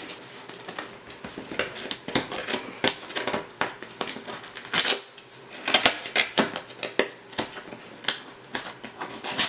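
Packaging being handled and pulled open by hand: irregular crinkles and clicks, with a louder burst of crackling about halfway through.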